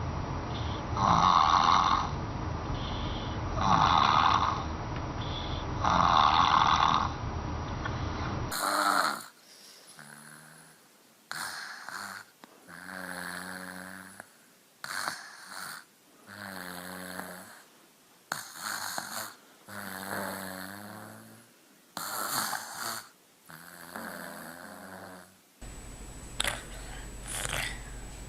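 Sleeping baby snoring, one loud breath about every two and a half seconds. A different baby's snores follow, each with a clear pitch, coming roughly every one and a half to two seconds.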